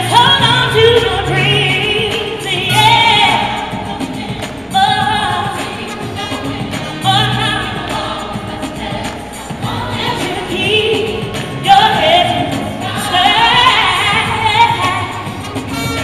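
Gospel vocal ensemble singing live in loud, sustained phrases over instrumental accompaniment with a steady bass line.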